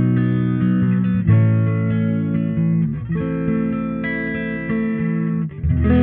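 Background music: guitar playing chords that change every second or two.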